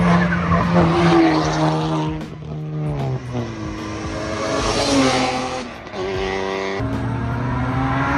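A car's engine accelerating hard on a pull, its pitch climbing and dropping at gear changes about three seconds in and again near six seconds.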